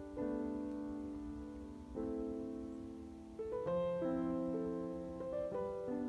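Slow, gentle solo piano music: sustained chords that change about every two seconds.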